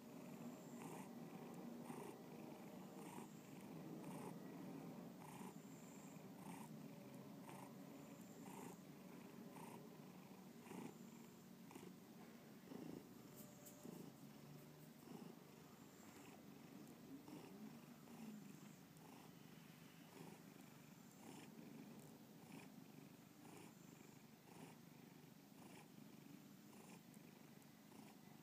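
Domestic cat purring quietly and steadily, close to the microphone, with an even rhythm as the purr repeats through each breath.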